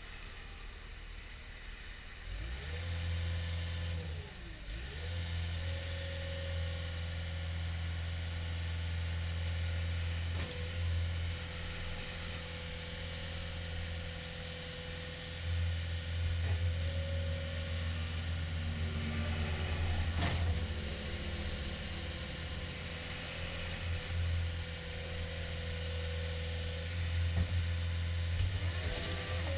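CAT 242D skid steer loader's diesel engine running, throttled up about two and a half seconds in and then held at working speed, with a higher whine over it that dips and rises a few times as the machine is worked.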